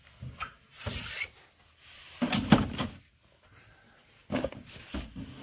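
Steel tool box drawers being shut and pulled open: a series of knocks and rattles of tools, the loudest clatter a little past two seconds in.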